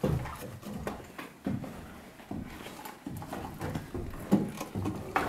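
Boots thumping and knocking on wooden boards while climbing up into a shelter loft, a string of uneven thumps about two a second.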